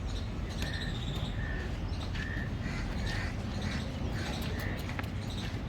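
Birds calling: a run of short, clipped calls repeating every half second or so, over a steady low background rumble.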